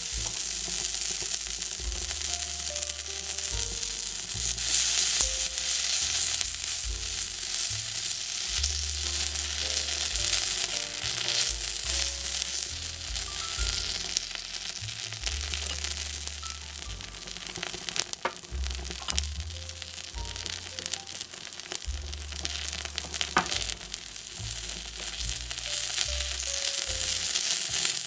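Yakisoba noodles and cabbage sizzling in a small hot cast-iron frying pan as they are stirred with chopsticks, a steady crackling hiss with a few sharp clicks in the second half. Background music with a slow bass line plays under it.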